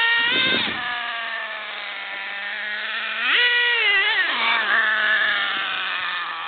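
Nitro RC buggy's small glow-fuel two-stroke engine revving in two bursts, about three seconds apart. The high whine falls back to a low, steady idle after each burst.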